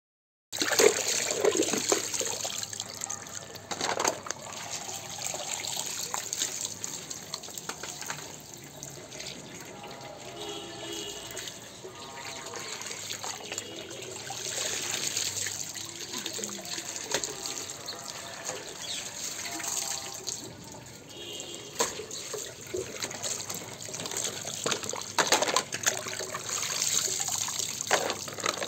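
Tap water running and splashing steadily while muddy toy vehicles are rinsed under it.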